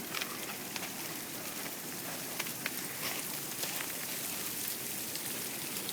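Freezing rain coming down hard, a steady patter with many small sharp ticks of ice striking the surfaces around.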